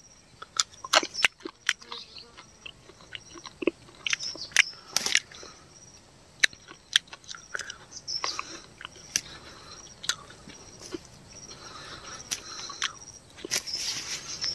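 Close-up crunching and chewing as a man bites into and eats raw hot chili peppers: irregular sharp crunches and wet mouth clicks.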